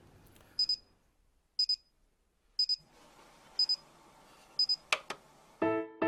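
Electronic alarm clock beeping: a high double beep once a second, five times. A sharp click follows about five seconds in, and music with a repeated note starts near the end.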